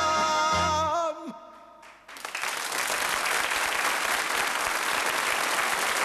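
The song ends on a held final note with the band about a second in. After a short quiet moment, an audience starts applauding, and the applause keeps going steadily.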